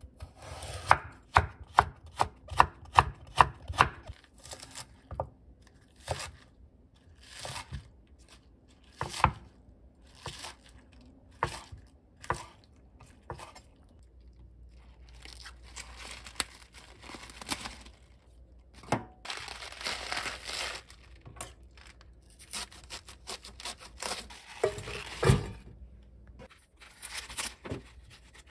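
Kitchen knife slicing a carrot thinly on a wooden cutting board: a quick run of crisp strokes, about three or four a second, then slower, scattered cuts. Later, wet bomdong (spring cabbage) leaves rustle under the hands in a sink, in a few longer bursts of noise.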